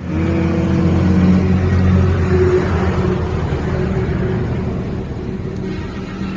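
Sugarcane juice crushing machine running with a loud, steady mechanical hum. It starts abruptly and eases off slightly towards the end.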